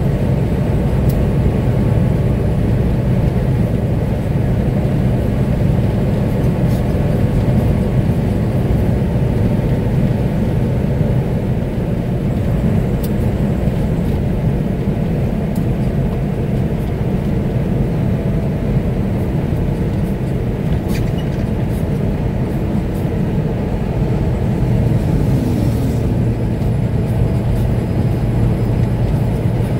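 Steady low rumble of a vehicle driving at road speed, engine and tyre noise heard from inside the cab.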